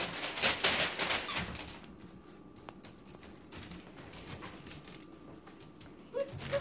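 Puppies scuffling on newspaper: loud rustling and crinkling of the paper for the first second and a half, then quieter scratches and taps of paws and claws. Two short, high puppy cries near the end.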